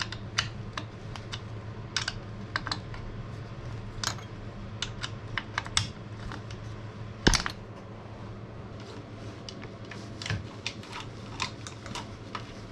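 Irregular light clicks and taps of small bike parts and tools being handled while cables are fed through a mountain-bike frame, with one sharper knock about seven seconds in.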